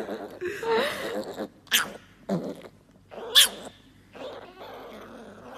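Mini piglet making soft low grunts, then a few short, sharp snorts.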